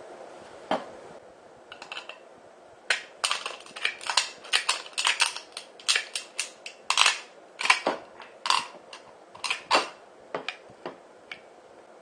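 Tin snips cutting through a thin steel food can: a quick, irregular run of sharp crunching snips, each cut a short click, thickest in the middle and thinning to a few lighter clicks near the end.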